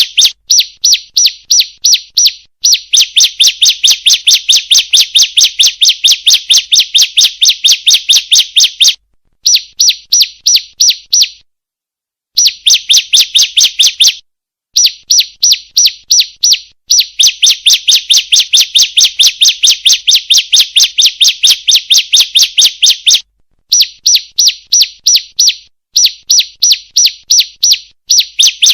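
Female bar-winged prinia (ciblek) calling: a fast, even series of sharp high chip notes, about four a second, in long runs broken by brief pauses. This is a repeated lure call of the kind played to prompt captive ciblek to sing.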